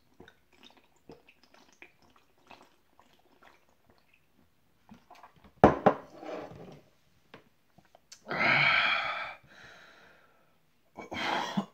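A man gulping down a pint bottle in a quick run of faint swallows. About halfway through comes a sudden loud gasp, then a long, harsh exhale and another near the end as the drink goes down hard.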